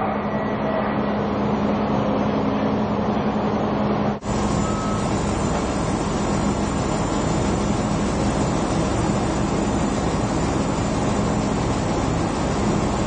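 Steady machinery din on a deepwater drilling rig, with a hum that holds one low tone. About four seconds in the sound changes abruptly to a fuller, steady noise with more low rumble.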